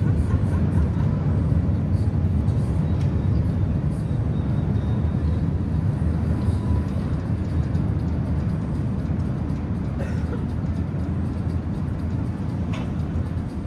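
Steady low rumble of outdoor city noise, easing slightly near the end, with a few faint clicks.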